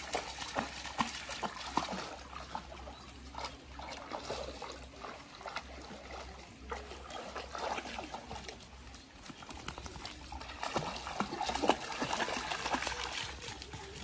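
A dog wading and paddling through a shallow stream, its legs splashing and sloshing the water in irregular strokes, busier and louder about three-quarters of the way through.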